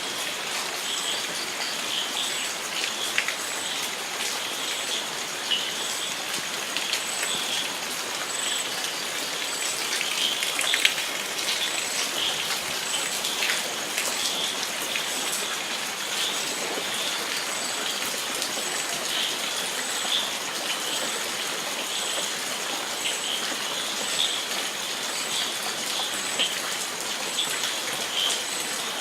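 Steady rain falling, with scattered individual drops tapping. A faint, high, regular chirp repeats a little more often than once a second.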